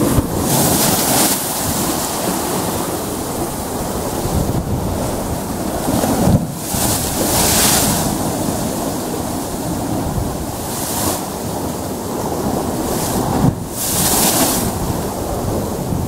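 Choppy sea surf washing against a rocky shore, with a wave crashing into spray on the rocks every few seconds. A steady low rumble of wind buffets the microphone underneath.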